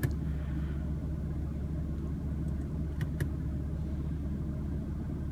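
BMW M3's S55 twin-turbo inline-six idling steadily, heard as a low hum from inside the cabin, with two short clicks about three seconds in.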